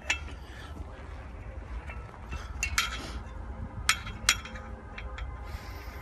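Sharp metallic clinks as a coated steel fence clip is fitted around a mesh panel wire and against a metal fence post: a handful of short taps, two close pairs in the middle, over a steady low rumble.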